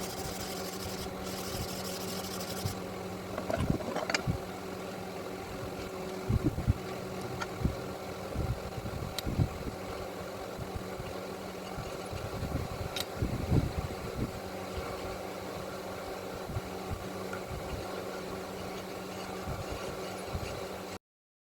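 An electric motor running steadily with a constant hum, with irregular knocks and a few sharp clicks from work being handled. The sound cuts off suddenly near the end.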